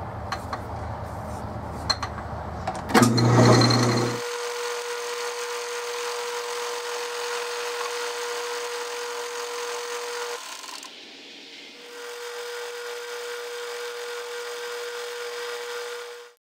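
A few clicks and knocks of hand work at a three-jaw lathe chuck, then a sharp knock about three seconds in. After that a metal lathe runs with a steady whine while a part is turned. The whine drops out briefly past the middle, then resumes.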